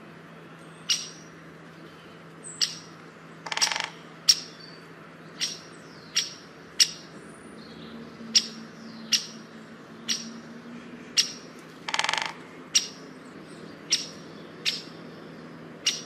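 Bird calls: short, sharp, high chips repeated roughly once every three-quarters of a second, with two longer, harsher calls about four and twelve seconds in, over a faint steady low hum.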